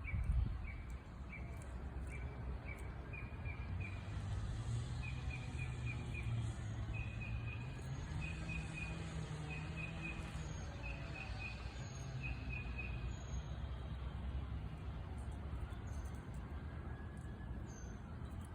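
Woodpecker calling: a series of short, clear notes, spaced at first and then speeding up into quick bursts, which stop about two-thirds of the way through. Thinner, higher chirps come and go throughout, over a steady low rumble.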